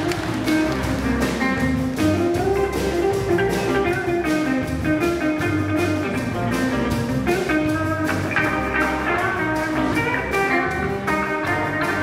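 Live school band music: electric guitars and bass guitar with saxophones, trombones and drums, playing a tune over a steady beat.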